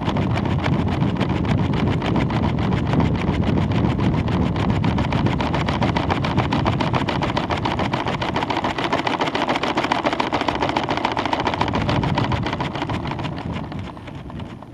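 Wind buffeting the microphone of a weather balloon payload camera during ascent: a steady rushing noise with a fast, even flutter, easing a little near the end.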